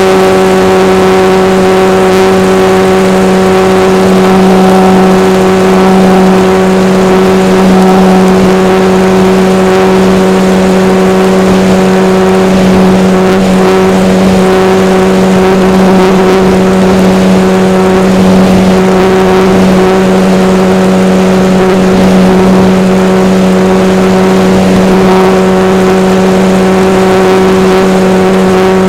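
Radio-controlled model airplane's engine and propeller running loudly at a steady throttle setting, one constant pitch with only slight wavers.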